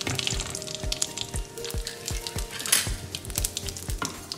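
Whole spices (cumin seeds, bay leaf, dried red chilli, clove, cardamom) crackling and sizzling in hot oil in a kadai for a tempering. Curry leaves going into the oil bring a louder, brief hiss a little past the middle.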